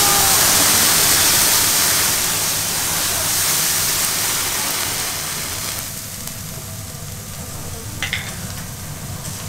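Beef steak flambéed on a hot iron griddle: a loud rush of flame and spattering sizzle that fades after about five seconds into a quieter, steady sizzle of the searing meat, with one short click near the end.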